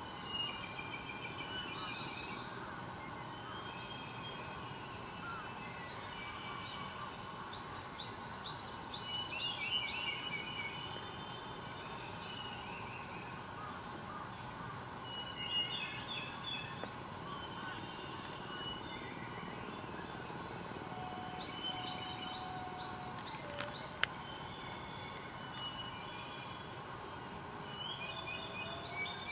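Several wild songbirds singing over a steady background hum. One bird repeats a quick run of six or seven high, falling notes three times, while others add shorter warbled chirps in between; a single sharp click comes about two-thirds of the way through.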